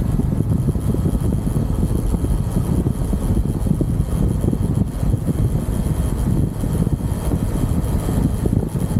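UM Renegade Commando 125 motorcycle's 125 cc engine running steadily while riding, with wind buffeting the handlebar-mounted microphone.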